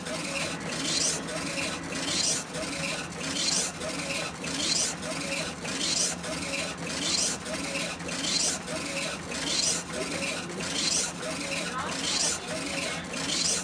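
Funsun DTF (direct-to-film) printer printing: the print-head carriage sweeps back and forth across the film, a swishing whir about every 1.2 seconds over a steady low hum.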